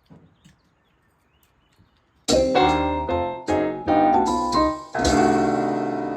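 Piano music starts suddenly about two seconds in: a quick string of struck notes, then held chords. Before it, only a few faint ticks.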